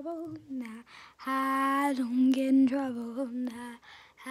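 A young girl singing unaccompanied without words: a short phrase, then one long held note that sags slightly in pitch before it stops.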